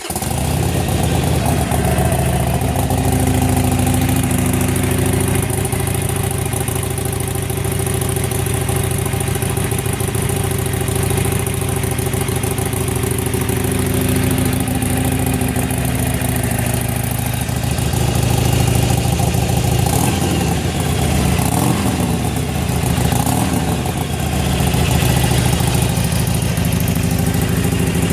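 Harley-Davidson Iron 883's air-cooled 883 cc V-twin idling steadily after start-up, with a slight wavering in the middle of the idle.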